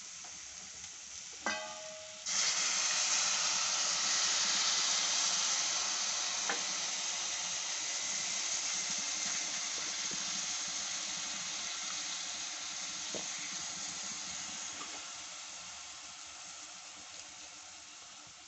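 Onion and green chilli mixture sizzling in a hot pan. After a light clink, a loud sizzle starts suddenly about two seconds in and slowly dies down.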